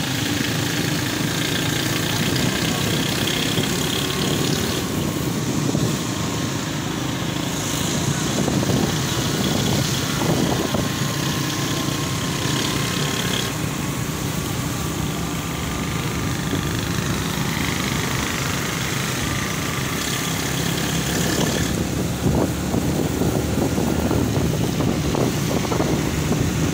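Motorcycle engine running steadily while riding, with tyre noise on the wet road.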